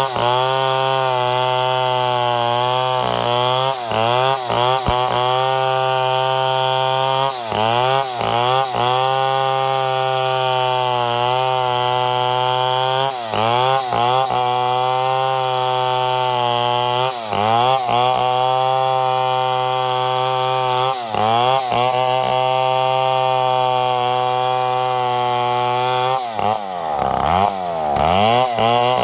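Chainsaw running at high revs while cutting redwood. Its engine pitch sags briefly and recovers every few seconds as the chain bites into the wood, and it drops deepest near the end.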